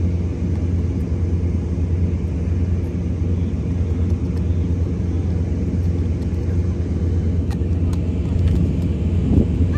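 Steady low droning hum of heavy machinery running without letting up, with a few faint knocks about three-quarters of the way through.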